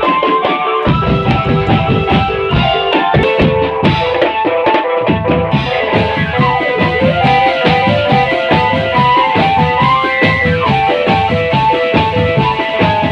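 Marching drum band music: dense drumming under a repeated melodic line of held and short notes.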